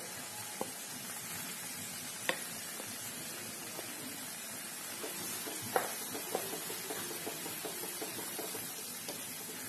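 A wet ground paste sizzling hard in hot mustard oil in a pan, a steady hiss as the water from the paste fries off. A few light clicks and knocks come through it, and near the end a wooden spatula stirs it.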